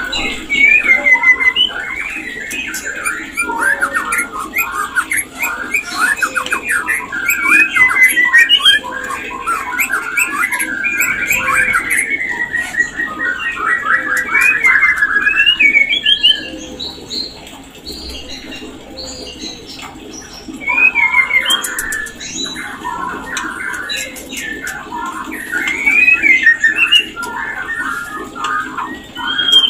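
White-rumped shama singing its breeding (mating) song: rapid, varied chattering and whistled phrases that pause for a few seconds a little past the middle, then start again.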